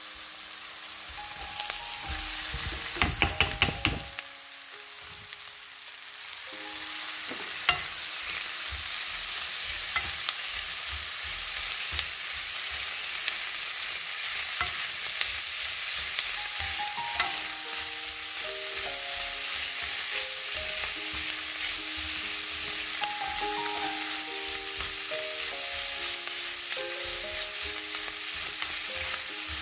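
Food sizzling steadily as it fries in a pan. A utensil knocks against the pan several times in quick succession about three seconds in, and the sizzle grows louder from about six seconds in.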